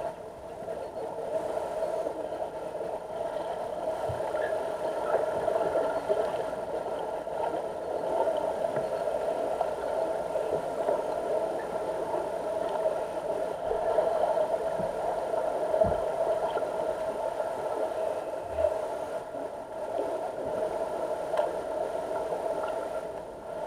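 Steady mechanical hum picked up underwater in a deep diving pool, with a few faint low knocks.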